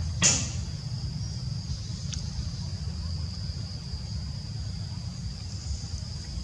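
Insects droning steadily in forest over a low rumble, with one sharp sudden sound about a third of a second in.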